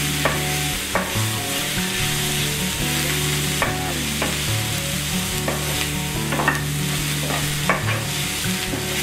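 Onions and powdered spices sizzling in a frying pan as a spatula stirs and scrapes them around the ceramic-coated pan: a steady sizzle with short scraping strokes about once a second. This is the masala being sautéed after the spices went in.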